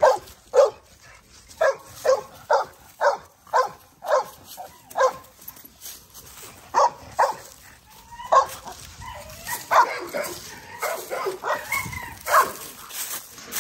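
A dog barking over and over, short sharp barks about two a second with a brief pause about six seconds in, then more barks mixed with whining yips.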